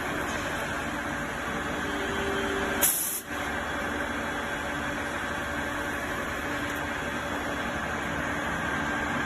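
CNC gantry plate drilling machine running, a steady mechanical noise with a faint hum. A short, loud burst of hiss comes just before three seconds in.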